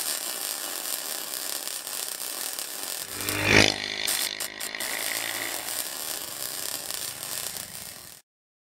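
Quadcopter drone's propellers buzzing steadily, with a louder swell about three and a half seconds in, cutting off suddenly near the end.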